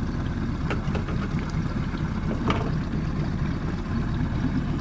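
Boat's outboard motor running steadily at low speed, a constant low rumble, with a couple of light knocks against the boat.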